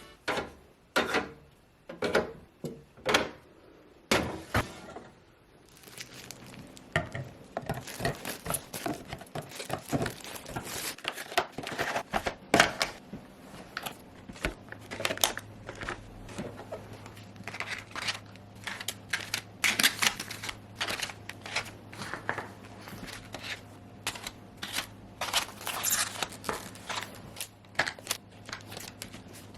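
Irregular clicks and knocks of containers and household items being handled and set down while a refrigerator is cleaned and organized: a few separate sharp knocks at first, then a busier run of small clatters. A faint steady low hum comes in about halfway through.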